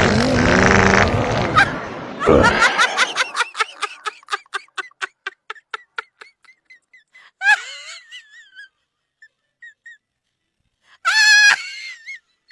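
A loud, raspy fake fart sound effect, followed by a long run of rapid laughter that tapers off, then two short, high, warbling squeals.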